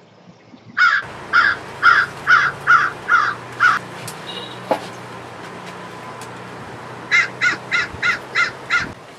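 A crow cawing in two runs of short, harsh calls: about seven caws over three seconds starting a second in, then six quicker caws near the end.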